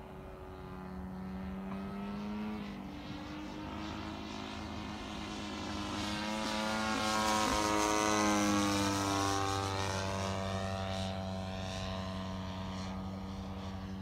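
Single-propeller engine of a radio-controlled Ju 87 Stuka scale model in flight, making a pass. The engine note grows to its loudest a little past halfway and drops in pitch as the model flies past, then fades as it moves away.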